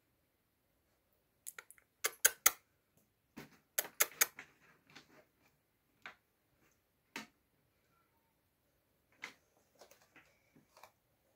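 A series of sharp clicks and taps in irregular clusters: a quick run of loud ones about two seconds in, another run around four seconds in, two single clicks in the middle and a scattered group of fainter ones near the end.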